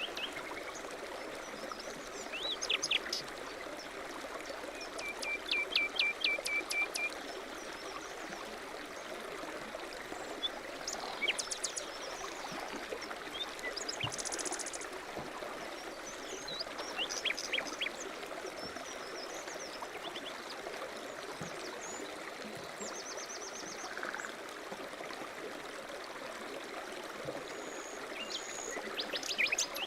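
Steady rush of flowing stream water, with small birds chirping and calling over it, including a quick run of repeated notes about five seconds in.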